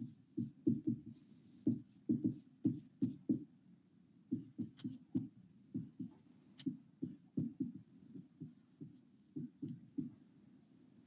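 Dry-erase marker writing on a whiteboard: a run of short, irregular strokes, a few a second.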